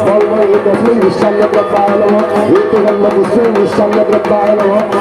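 Music with fast, steady drum beats under a melody.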